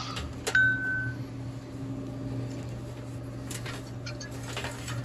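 A cable being pulled out through a vending machine's door, with faint clicks and scrapes of the cable and the machine's parts. Under it runs a steady low hum, and a short high beep sounds about half a second in.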